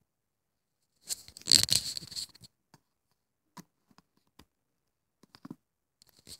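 Handling noise: a burst of scraping and rustling about a second in, lasting about a second and a half, as a phone charging cable is handled. Then a few faint clicks as a micro-USB charging plug is fitted into the LG Tribute phone's charging port.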